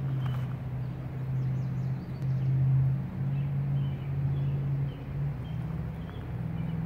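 Steady low hum of a vehicle engine or passing traffic, swelling and easing. Faint short high peeps sound over it every second or so, the calls of small goslings.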